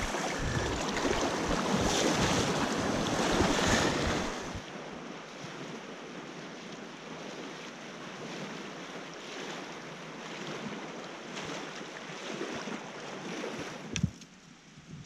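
Wind buffeting the microphone, with a gusty low rumble for about the first four and a half seconds, then a quieter, steadier rushing hiss. A single sharp click near the end.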